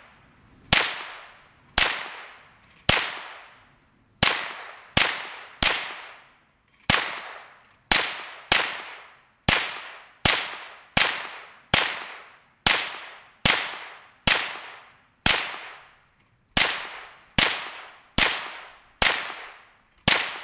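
ISSC MK22 .22 LR semi-automatic rifle fired in rapid single shots, about twenty-two sharp cracks at an uneven pace of roughly one a second, each dying away over about half a second. The rifle empties its 22-round magazine, its action cycling every round although fouled by some 300 shots without cleaning.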